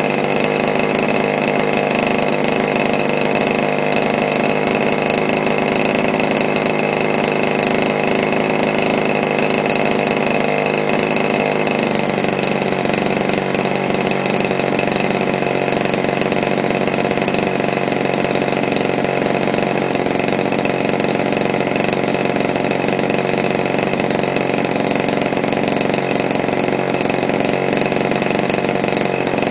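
DLE 30cc single-cylinder two-stroke gasoline engine on an RC biplane running steadily while it is being broken in on the ground, with the propeller spinning. Its pitch shifts slightly about twelve seconds in, then holds steady again.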